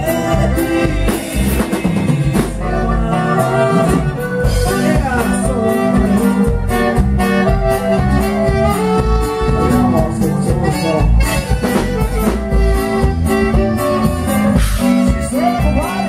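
Live dance band playing a number loud and without a break: a steady beat of drums and bass under a melody line and a singing voice.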